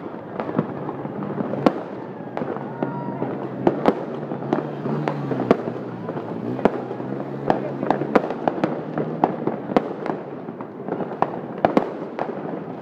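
A fireworks display bursting overhead: sharp bangs and crackles at irregular intervals, a few each second, over a constant noisy background.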